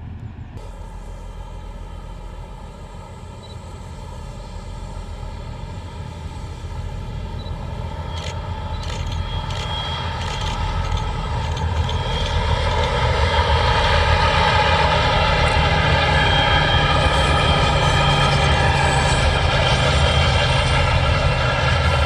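Diesel locomotive engine hauling a freight train: a steady engine note that grows louder over about ten seconds as the train approaches, then holds loud.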